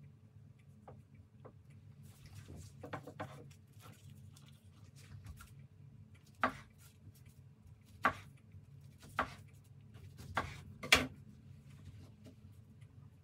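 Kitchen knife slicing through a sushi roll on a cutting board, each cut ending in a sharp knock of the blade on the board: five knocks about a second apart, the last the loudest. Softer rustling and handling noises come before the cuts.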